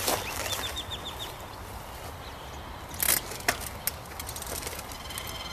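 Outdoor ambience with a steady low rumble. A small bird chirps a quick run of about six short high notes half a second in, and a loud brief rustle comes about three seconds in, followed by a couple of clicks.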